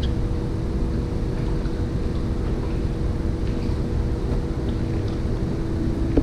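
Steady low rumble with a constant hum, the sound of an indoor fishing pool's water circulation pump running, with a single sharp click at the very end.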